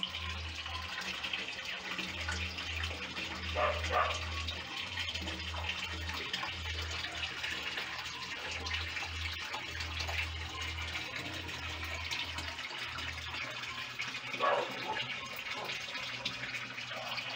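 Steady rush of running, splashing water in a backyard pond, briefly louder about four seconds in and again near the end, over a low hum that comes and goes and stops a few seconds before the end.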